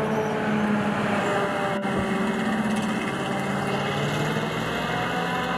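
Heavy wheeled rocket-launcher truck's engine running steadily as the vehicle drives, its hum shifting slightly in pitch.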